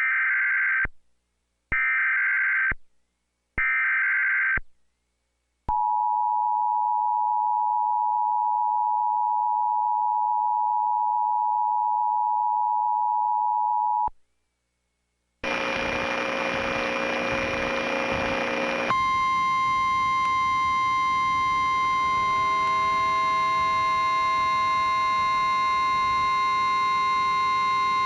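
Emergency Alert System header data bursts: three harsh screeching bursts about a second apart. They are followed by the two-tone EAS attention signal held for about eight seconds. After a brief gap comes a harsh noisy stretch, then a second long, steady, buzzy alert tone from about nineteen seconds in.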